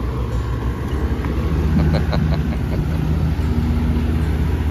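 Boat engine running steadily, a deep hum that grows a little louder about a second and a half in.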